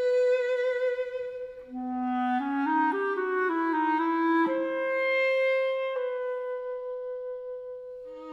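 A violin finishes a held note with vibrato, then a clarinet takes up the melody about two seconds in with a rising run of short notes and settles on a long, steady high note, in an instrumental passage of a Yiddish song.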